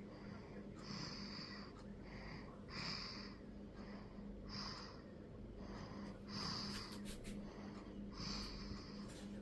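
A sleeping baby snoring: noisy breaths in and out, one about every second, some in quick pairs.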